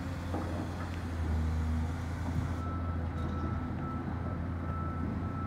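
Demolition excavator's diesel engine running steadily, a low drone, with a few light knocks and a faint thin high tone.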